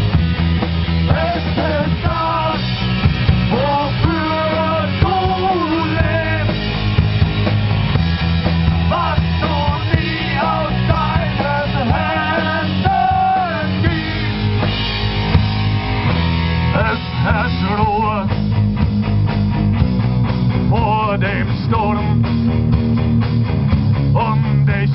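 Live rock band playing: electric guitar and drum kit, with a man singing lead vocals over them.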